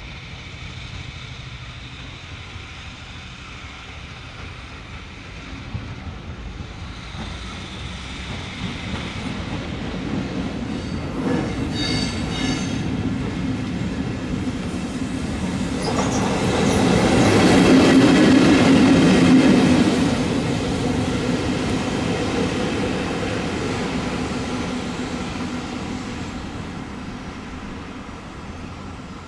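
EF65 electric locomotive passing at low speed, its running noise growing as it approaches, with a brief high wheel squeal about twelve seconds in. It is loudest as it goes by a little past halfway, then fades as it moves away.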